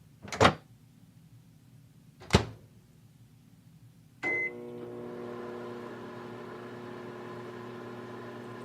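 Two sharp knocks, then a microwave oven beeps once about four seconds in and starts running with a steady hum, heating a drink for tea.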